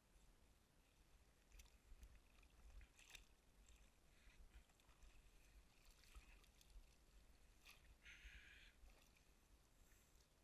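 Near silence, with faint clicks and rustles from a wet nylon cast net being gathered and thrown by hand from a small boat, and a short hiss about eight seconds in.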